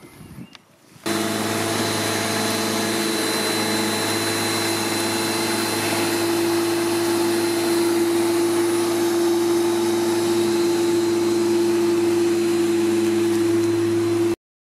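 Parkside PRM 1300 A1 corded electric lawnmower's 1300 W motor and blade running steadily while mowing grass, a steady hum over a noisy whir. It starts abruptly about a second in and cuts off suddenly just before the end.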